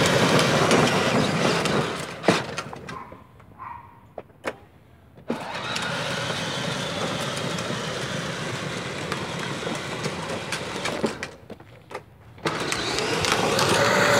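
Battery-powered Power Wheels ride-on truck driving on asphalt while towing a loaded trailer: a steady whir of its electric motors and gearboxes with the rumble of wheels rolling on the road. The noise drops away twice for a second or two, a few seconds in and again near the end.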